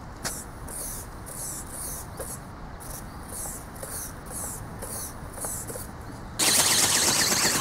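Low hiss with faint regular pulses about twice a second, then about six seconds in a much louder, harsh whirring starts suddenly and holds steady. This is the robot falcon ornithopter's small brushless motor and gear train driving its flapping wings.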